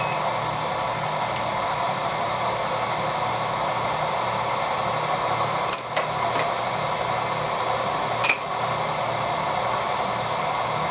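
Vertical milling machine running steadily, its end mill spinning clear of the work while the table is wound in to set a 1 mm cut. A few short sharp clicks about six seconds in and once more a little after eight seconds.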